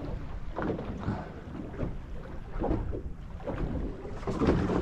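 Wind buffeting the microphone over the sound of sea water sloshing and slapping against a small boat's hull in a heavy swell, with a few irregular louder surges.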